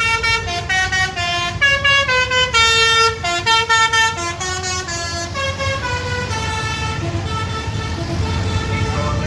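Intercity bus's basuri telolet horn playing a quick tune of rising and falling notes, several a second, over the low rumble of traffic; the tune grows fainter in the last few seconds.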